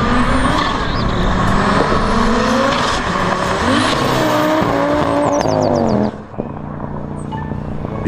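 Audi 80 sedan accelerating hard past, its engine rising in pitch through several gear changes. About six seconds in the sound drops to a quieter, steadier run as the car moves away.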